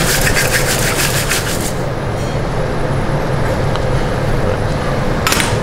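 Steady low drone of commercial kitchen extraction and refrigeration, with short bursts of rattling and scraping against stainless steel in the first second and a half and again about five seconds in.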